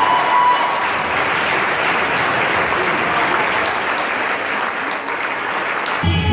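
Audience applauding steadily; music comes in just before the end.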